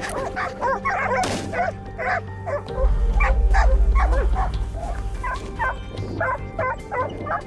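Several hunting dogs barking and yelping in rapid, overlapping calls. A deep rumble swells up about three seconds in and fades out about three seconds later.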